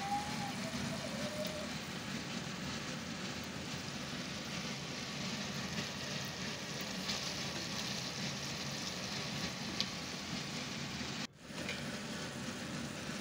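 Chicken pieces frying in desi ghee and yogurt masala in a steel pot: a steady sizzle with scattered small pops, at the stage where the ghee begins to separate from the masala. The sound breaks off for an instant about eleven seconds in.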